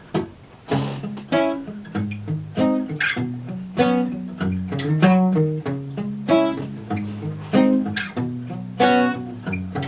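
Guitar playing a song's intro: chords with sharp attacks at a steady rhythm, about every half second or so, starting just under a second in.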